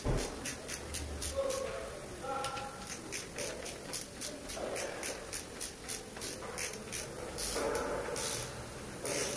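Ratchet wrench clicking in quick runs of about five clicks a second as it is swung back and forth, running down a connecting-rod cap bolt on a Toyota 1GR-FE V6 engine, with a few longer scraping rasps near the end.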